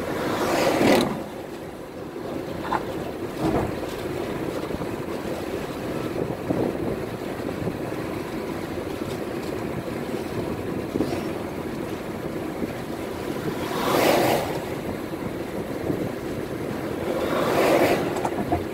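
Road and wind noise of a car driving at speed on a dual carriageway: a steady rushing noise that swells briefly three times, about a second in, about two-thirds of the way through and near the end.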